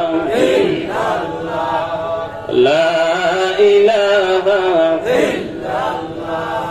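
A man's voice chanting a slow devotional zikr melody on long held notes, in phrases of about two to three seconds, each scooping up in pitch and then holding steady before a short breath.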